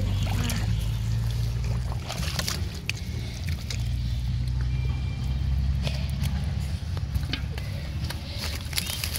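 A steady low rumble runs under scattered sharp clicks and wet squelches of hands working in soft mud.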